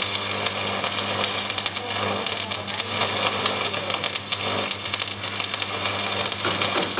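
Electric arc welding on a steel loader bucket: a steady, dense crackle from the arc over the constant hum of the welding machine.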